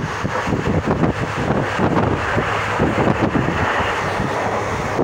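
Wind buffeting the microphone at a moving passenger train's window, over the low rumble of the train running on the track.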